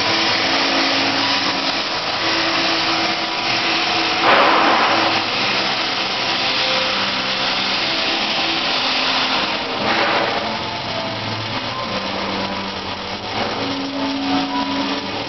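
Electric arc welding overhead on a steel gooseneck frame: the arc gives a steady hiss, with brief louder flares about four and ten seconds in.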